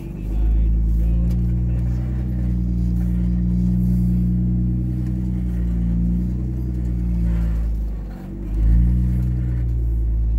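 Four-wheel-drive vehicle's engine running steadily under load in four-wheel low while crawling over rock. Its revs sag about eight seconds in, then climb again sharply.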